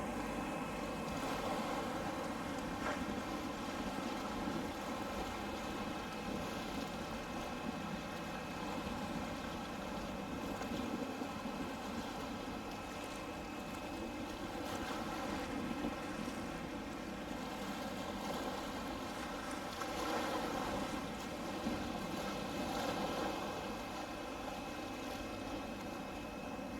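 Steady hum of a boat's engine over wind and water noise, holding an even level throughout.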